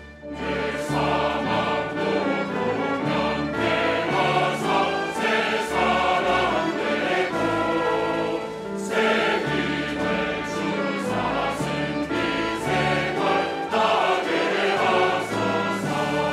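Large mixed church choir singing a hymn in Korean, accompanied by a small orchestra of strings with double bass. The choir comes in just after a brief lull at the start.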